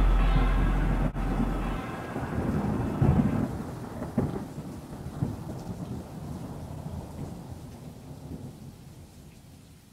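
A deep rumble of thunder dying away steadily, its lowest boom cutting out about two seconds in, with a few sharper cracks around three to five seconds in as it fades.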